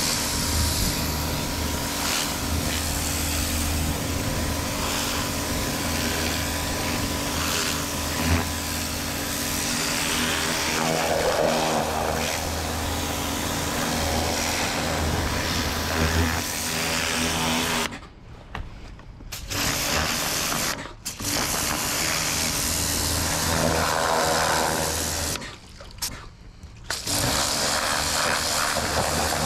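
Pressure washer running, its jet of water blasting a fibreglass boat deck. It cuts out briefly three times, a little past halfway, about three seconds later, and again near the end, as the trigger is let go and squeezed again.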